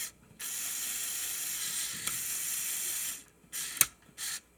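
Lego Technic drivetrain spun by Power Functions motors, a high, hissing whir that runs in stretches: it stops briefly just after the start and again about three seconds in, followed by short spurts and a sharp click.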